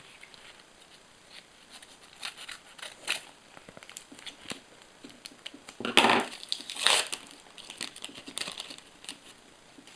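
A paper sticker packet being torn open and its wrapper crinkled: scattered light crackles, with two louder rustles about a second apart a little past halfway.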